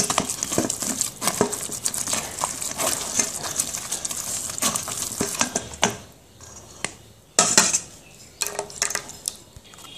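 Steel spoon scraping and pressing boiled tomato pulp through a plastic colander mesh to strain it: a dense run of scratching and rubbing for about six seconds, then a few separate louder scrapes.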